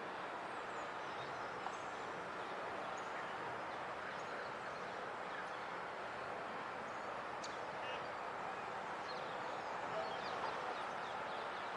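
Steady hum of distant city traffic, with faint, short, high chirps of small birds now and then, more of them in the second half.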